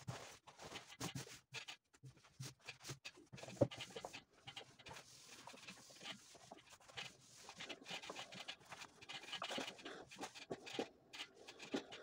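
Trousers rustling as hands smooth them out on an ironing board, and a steam iron sliding over the fabric, in irregular scrapes and brushes. A single sharp knock comes about three and a half seconds in.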